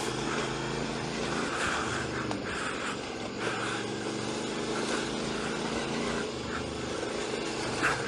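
Royal Enfield motorcycle engine running at a steady pace while riding a dirt trail, with a constant rushing noise over it.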